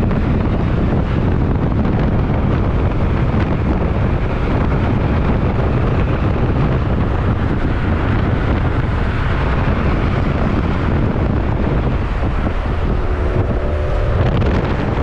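Steady road and wind noise of a car driving along a city street, with a low rumble of engines and tyres.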